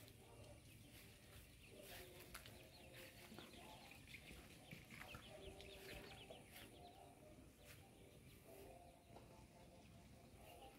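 Near silence with faint birds calling in the background: short broken calls and a few thin chirps.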